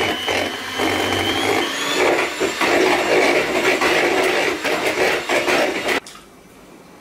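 Electric hand mixer running, its beaters whisking an egg mixture in a plastic bowl, with irregular clicks over the steady whirr. It cuts off suddenly about six seconds in, leaving quiet room sound.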